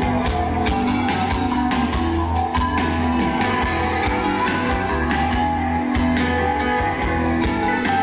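Rock band playing live: electric guitar over held bass notes and a steady drumbeat.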